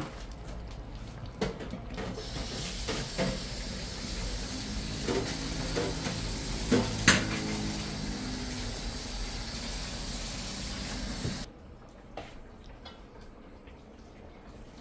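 Kitchen tap turned on, water running steadily into a pot or sink for several seconds, then shut off sharply near the end. Clinks and knocks of pots and utensils come with it, the sharpest about seven seconds in.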